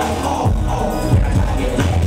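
Live hip-hop music through a concert sound system, with a heavy bass beat.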